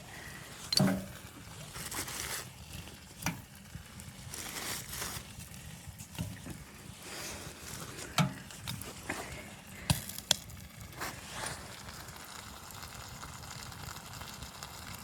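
Irregular clicks, knocks and rustling, like objects being handled, with a few sharper knocks about a second in, around eight seconds and around ten seconds.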